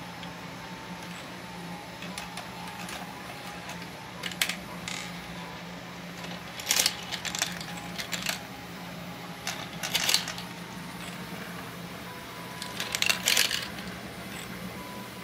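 3D-printed plastic marble machine running: its small motor and plastic gears hum steadily while steel marbles click and clatter against the plastic tracks and stairs in several short bursts a few seconds apart.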